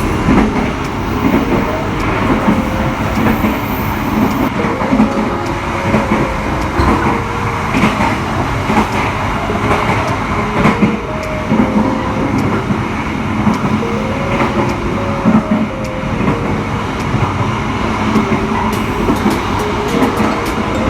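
Passenger train running along the track: a steady rumble of wheels on rail with scattered clicks.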